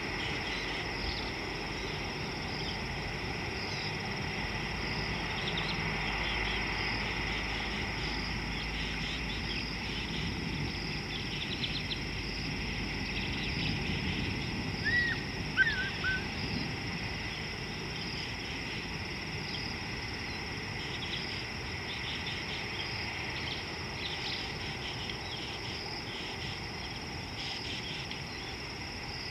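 Steady outdoor chorus of insects, an even high trill that runs without a break. About fifteen seconds in, a bird gives a short call of a few quick notes that bend up and down, the loudest sound of the stretch.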